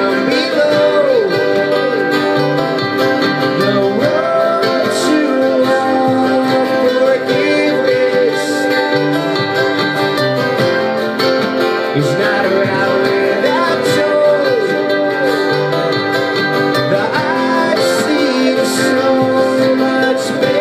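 Solo acoustic guitar played with a man singing over it, the voice coming in phrases that slide between notes.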